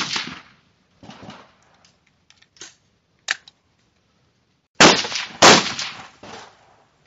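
Rifle shots on an outdoor firing line. The echoing tail of one shot fades at the start, with fainter knocks and a sharp click after it. Near the end come two loud shots about two-thirds of a second apart, each echoing briefly.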